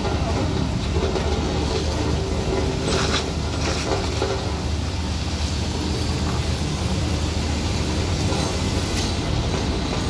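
Heavy truck running with a steady low engine rumble and rattling body and load, with louder clattering about three seconds in and again near nine seconds.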